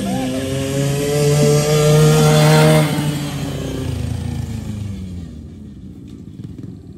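Kawasaki KFX50 youth ATV's small two-stroke engine running as the quad passes close by. It is loudest about two to three seconds in, then its pitch falls and it fades as it moves away.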